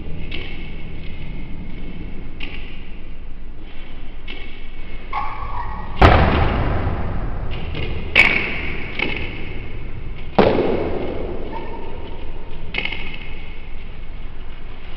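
Three hard hits of a table tennis ball, about two seconds apart, each sharp at first and then echoing, over a steady background hum.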